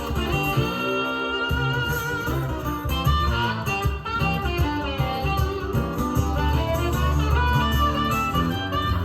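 Music with guitar and strings played back from a cassette on a recapped Pioneer T-1100 tape deck.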